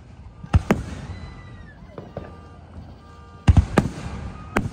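Aerial firework shells bursting overhead: two sharp bangs about half a second in, a quick cluster of bangs about three and a half seconds in, and one more near the end, with a low rumbling echo between them.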